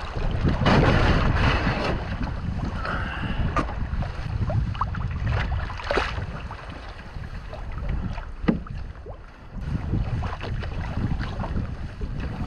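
Gusty squall wind buffeting the microphone over water slapping and splashing against a canoe being paddled through choppy waves, with a few sharp knocks and splashes along the way.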